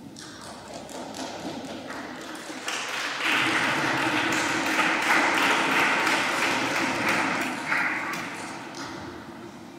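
Congregation applauding, swelling about three seconds in and dying away near the end, with people talking.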